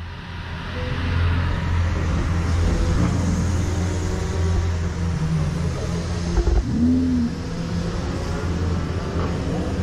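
Lamborghini Huracán's V10 idling with a steady low drone, with a short rising-and-falling blip about seven seconds in.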